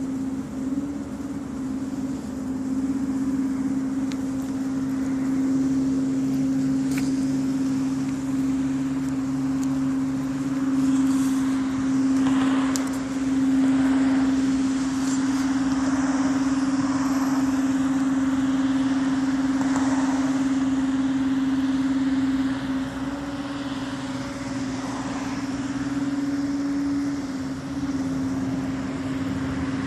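Steady droning hum holding one pitch without a break, a strange sound in the sky that the recordist says is not coming from the plane overhead.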